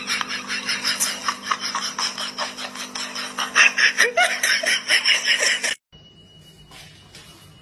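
A person laughing hard in rapid breathy bursts over a steady low hum, cut off suddenly near the end by a much quieter stretch with a faint steady high tone.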